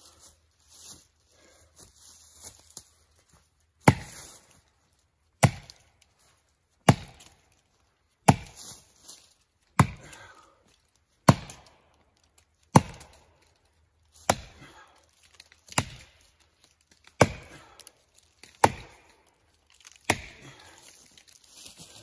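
Axe with a 4-pound head on a 36-inch handle chopping into the trunk of a dead standing tree: twelve sharp strikes, about one every one and a half seconds, starting about four seconds in. Before the first strike come light rustling steps in dry leaves.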